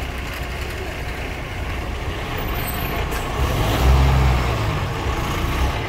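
Truck engine running with a steady low rumble, the deep drone growing heavier about four seconds in.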